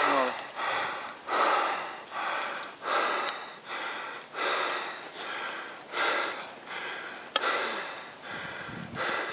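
Heavy, rhythmic breathing close to the microphone, a breath in or out about every second, from someone out of breath on a steep climb. Two sharp clicks, about three and seven seconds in.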